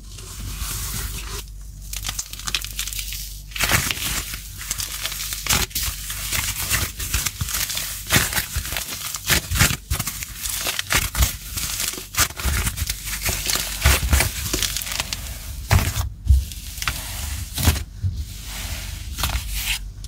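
Crumbly clay being squeezed and broken apart by hand: a dense run of crackles and crunches, with a few brief pauses.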